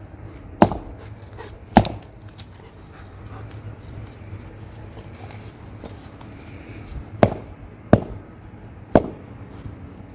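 Sharp hammer blows on a stake: two strikes in the first two seconds, then after a pause three more about a second apart. A low steady hum runs underneath.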